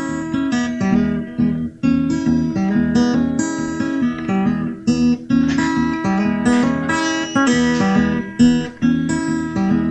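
Instrumental music led by strummed guitar, with no singing.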